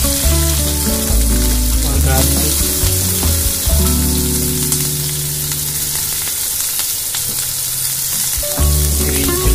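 Sliced onions sizzling steadily as they fry in hot oil in a kadai, with background music underneath.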